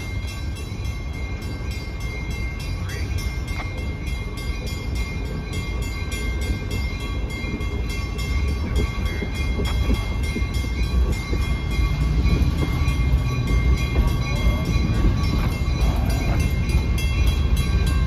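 Train of empty hopper cars rolling along the rails, its low wheel rumble growing louder as the cars draw near and pass, with a steady high-pitched ringing tone above the rumble.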